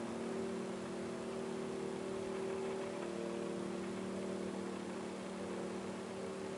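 A distant, unidentified low drone: several steady held tones sounding together over a constant hiss, without change in pitch or loudness.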